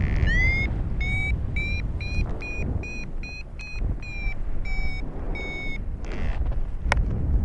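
Paragliding variometer beeping its climb tone: a run of short beeps, about two to three a second, rising slightly in pitch and then easing back, the sign that the glider is in rising air. Heavy wind rumble on the microphone runs underneath.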